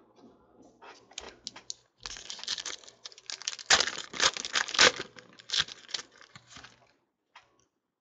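Foil wrapper of a 2014 Panini Prizm card pack being torn open and crinkled by hand. It starts with a few light crackles, then about two seconds in turns into a dense crinkling tear that is loudest in the middle and dies away near the end.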